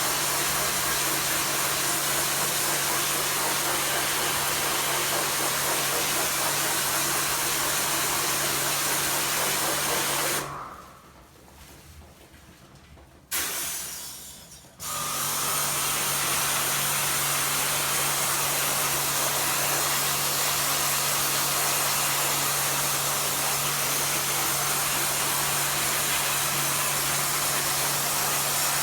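High-pressure washer spraying water onto an air conditioner: a steady spray hiss over the washer's motor hum. It cuts out about ten seconds in, comes on for a short burst, then starts again about five seconds later and keeps running.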